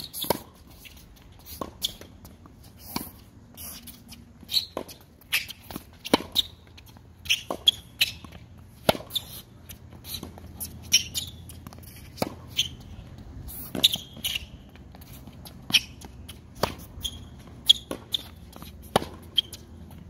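Tennis rally on a hard court: racket strikes and ball bounces follow one another about every second, with the short high squeaks of tennis shoes on the court surface between them.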